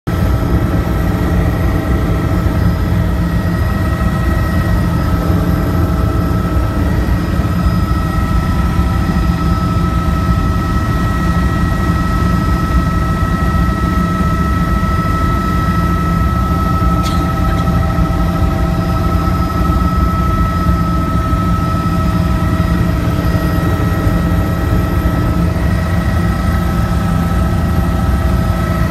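Helicopter engine and rotor noise heard inside the cabin in steady cruising flight: a constant low rumble with a steady high whine above it.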